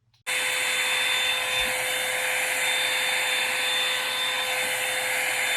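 Revlon One-Step hot-air brush dryer switched on a moment in, then running steadily: a loud rush of air with a steady high whine from its motor.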